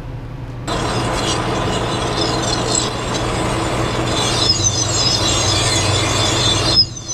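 Metal lathe cutting a groove into a stainless steel conflat flange: a steady motor hum under the scraping of the cutting tool, starting about a second in. From about halfway on, high chirping squeals join in, like a bird call, as the angled cutter bites into more and more of the stainless the deeper it goes. The sound cuts off abruptly just before the end.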